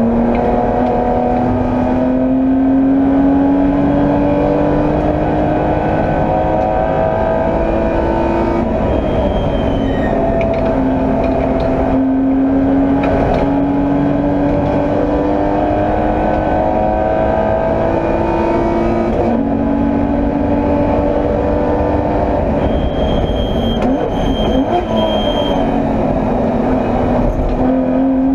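BMW E30 325i's straight-six racing engine heard from the cockpit, pulling hard with its pitch climbing steadily through each gear and dropping at two upshifts. About three-quarters through, the revs break up as the driver lifts and shifts down, with a brief high squeal, before the engine pulls again.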